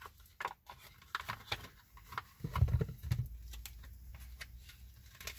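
Tarot cards being handled: scattered light clicks and taps, with a low bump about two and a half seconds in.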